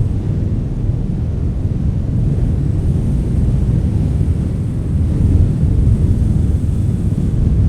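Wind blowing hard, a deep, steady rush that swells slightly about five seconds in.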